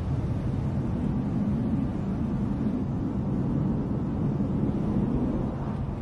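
A steady low rumbling noise, fading slightly near the end.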